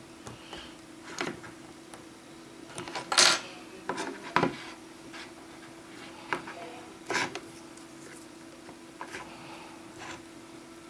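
Small repair tools clicking and scraping against an iPhone 6S as it is taken apart: a scattering of light clicks and short scrapes, the loudest about three seconds in and again near seven seconds, over a steady faint hum.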